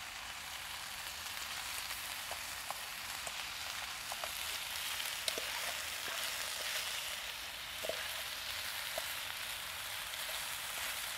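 Chicken pieces sizzling and frying in a small pan over a wood-burning gasifier stove, a steady hiss, with a few brief light clicks scattered through it.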